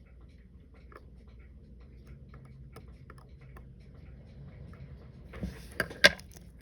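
Small metallic clicks and taps of watchmaker's tools on a watch being taken apart, irregular and faint at first, then a few sharper clicks near the end, the loudest about six seconds in.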